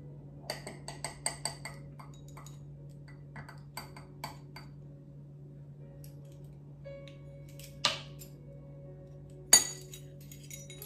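A ring of metal measuring spoons clinking and tapping against a metal mesh sieve as allspice is measured out and added. There is a quick run of ringing clinks in the first second or two, scattered light ticks after, and two louder knocks about eight and nine and a half seconds in, over a steady low hum.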